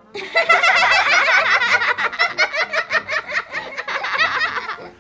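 High-pitched giggling laughter, a run of quick laughs lasting nearly five seconds.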